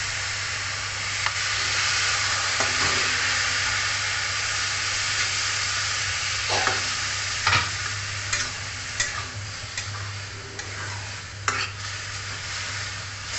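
Water poured into a hot metal kadai of frying chicken and onions, hissing and sizzling loudly, while a metal spatula scrapes and knocks against the pan as the mixture is stirred. The sizzle is strongest in the first half and eases somewhat toward the end.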